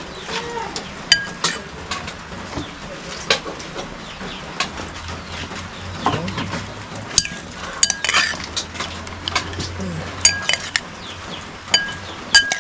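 Metal spoon stirring and tossing sliced onion and sea cucumber in vinegar in a white bowl, with irregular clinks of the spoon against the bowl, a few of them ringing briefly.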